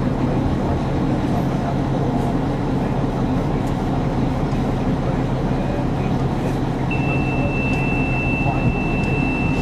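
Renault Magnum lorry's diesel engine idling steadily, heard from inside the cab. A thin, steady high-pitched tone joins in about seven seconds in.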